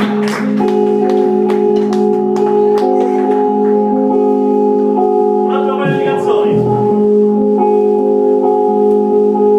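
Live garage band music: held, sustained chord tones changing every second or so, with a short burst of voice about six seconds in.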